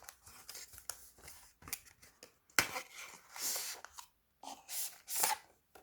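Cardboard packaging being opened by hand and its security seal broken, with scattered clicks, a sharp click midway and several short scraping, rustling strokes.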